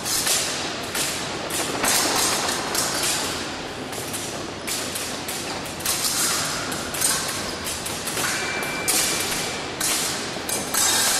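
Épée fencers' footwork thumping and stamping on the fencing piste, with occasional sharp taps, over steady hall noise.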